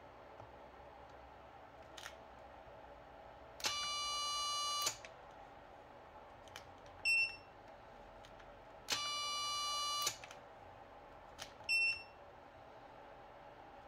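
Futaba A700 digital servo straining against a force gauge, twice giving a steady, high electronic whine for about a second with a click as it starts and stops. Each time a short, higher beep follows about two seconds later, with faint clicks between.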